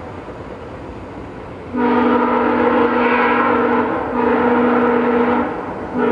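Multi-tone locomotive air horn sounding in separate blasts: a long one starting about two seconds in, a shorter one after a brief gap, and a third starting near the end.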